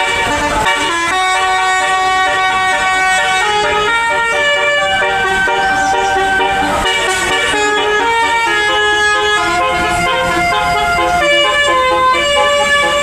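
Indonesian bus 'telolet' horn, a multi-tone musical air horn, playing a loud melody. Its held notes step to a new pitch every half second to a second, with several tones sounding together.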